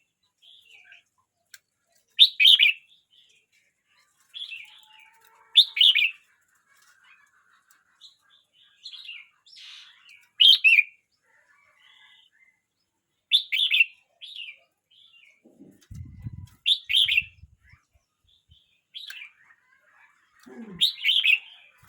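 A year-old red-whiskered bulbul singing: short, bright song phrases repeated every three or four seconds, with softer chirps between them. A brief low thud about two-thirds of the way through.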